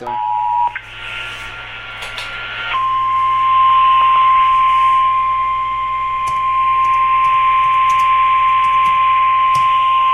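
Emergency alert tones received over radio: a brief two-tone EAS attention signal at the very start, then hiss, then from about three seconds in a single steady NOAA Weather Radio warning alarm tone, heralding a severe thunderstorm warning.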